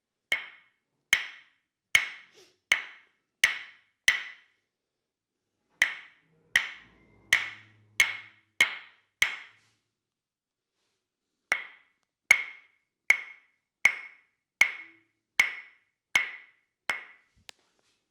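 Tok-sen wooden mallet tapping a wooden wedge, a sharp ringing knock about every three-quarters of a second. The knocks come in three runs of six to eight strikes with short pauses between them.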